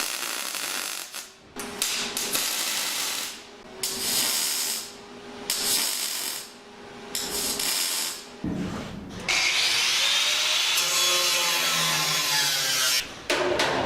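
A power tool working the car's sheet-metal body panel in a string of short bursts, then one steady run of about four seconds near the end.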